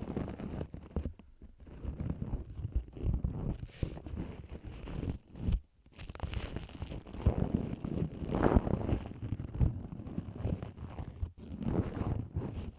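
Ear pick scratching and scraping at a TASCAM DR-40 recorder's microphone in ear-cleaning ASMR: irregular rustling strokes with a deep rumble, pausing briefly twice.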